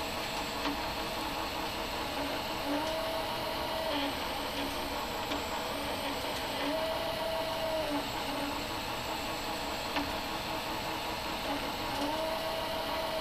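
Laser engraver's gantry stepper motors whining as the laser head moves back and forth engraving a photo into wood; the pitch rises and falls with each pass, about three times, over a steady rushing noise.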